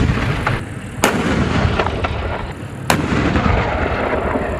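Water rushing and splashing as muddy toys are washed, a loud rumbling noise broken by two sharp clicks about one and three seconds in.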